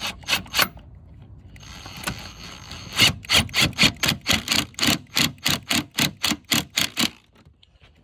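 A run of sharp, evenly spaced knocks, about four a second, starting about three seconds in and stopping about a second before the end. A few single clicks and a short scraping rub come before it.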